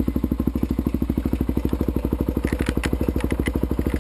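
Honda TRX400EX quad's single-cylinder four-stroke engine idling steadily after starting, its exhaust beating at roughly a dozen even pulses a second.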